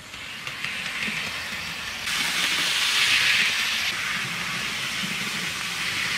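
Hornby OO gauge Terrier model locomotive and its two wagons running on the track: a steady hiss of motor and wheels. It steps louder about two seconds in.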